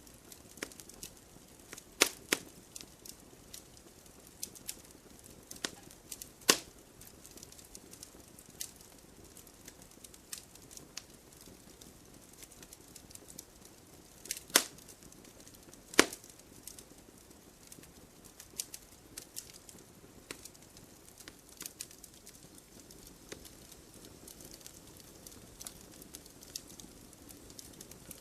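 Wood logs burning in a fireplace: scattered small crackles over a faint hiss, with a handful of louder, sharp pops from the burning wood.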